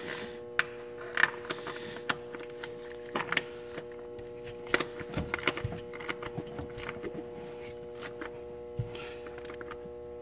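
Ratchet wrench tightening the bolt of a spin-on fuel filter adapter on a multifuel truck engine: scattered sharp metallic clicks and clinks as the bolt is snugged down, over a steady hum.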